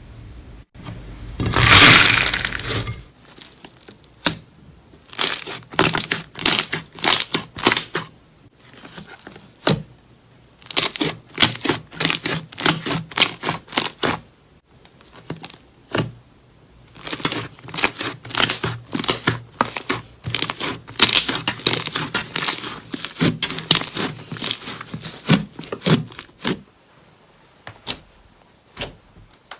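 Slime being squeezed and pressed by hand: a loud squelching burst about two seconds in, then clusters of sharp crackling pops.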